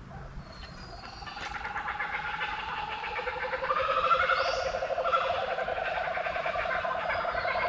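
Birds calling: several rapid, pulsing calls at different pitches that start about a second in and build steadily in loudness.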